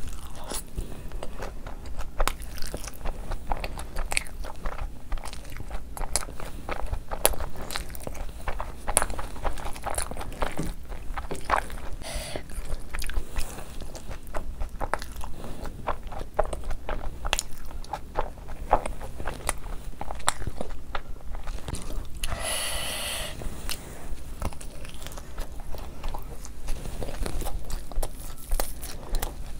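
Close-miked eating: chewing and biting mouthfuls of loaded chicken fries, with crunches and many short sharp mouth clicks throughout. There is a brief hiss about three-quarters of the way through.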